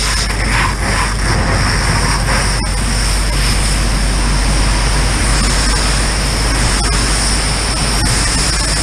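Firefighting hose nozzle on an attack line flowing a steady, full stream of water: a loud, continuous rush of water with no break.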